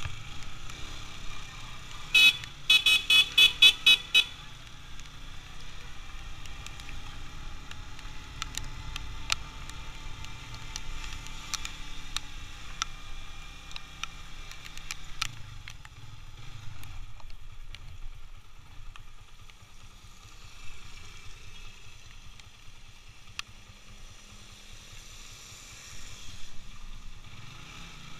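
Motorcycle riding through town, a steady low engine and wind rumble. About two seconds in a horn gives one sharp blast, then a quick run of about eight rapid toots lasting under two seconds.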